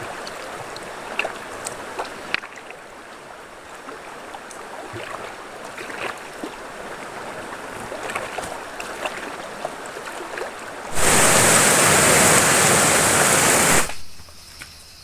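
River water running, with scattered small splashes and clicks. About eleven seconds in, a loud, even rushing noise starts abruptly and cuts off about three seconds later.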